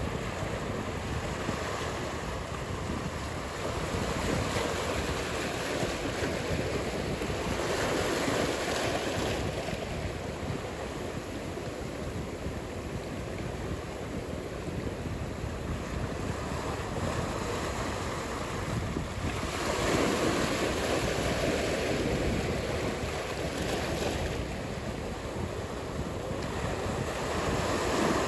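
Ocean surf: a steady wash of breaking waves, swelling and fading every few seconds.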